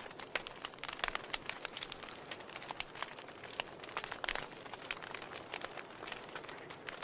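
Wood fire burning in a fireplace, crackling with irregular sharp pops over a soft steady hiss; a few louder pops about a second in and again past the middle.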